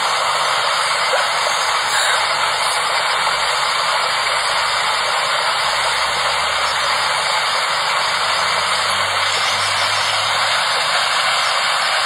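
Steady, loud rush of river water, an even hiss with no breaks.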